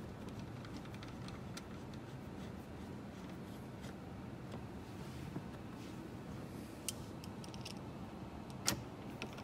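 Faint scraping and a few small sharp clicks of a hand screwdriver and screw being handled and fitted into the plastic glovebox mounting, over a low steady hum.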